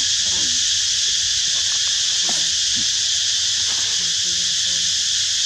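A loud, steady insect chorus droning without a break. A few faint short calls sound underneath it.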